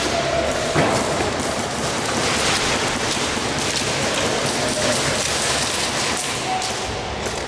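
Dense, rain-like pattering clatter of airsoft fire and BBs striking walls and props, with no single loud shot standing out.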